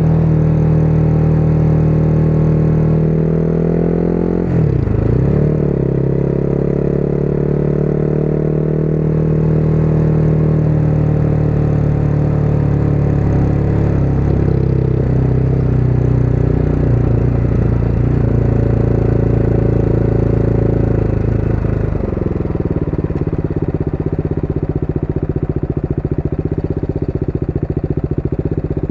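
Motorcycle engine running on the move, with a sharp dip and quick recovery in revs about five seconds in, the revs then easing down gradually. From about three quarters of the way through the engine settles to a lower, more pulsing note.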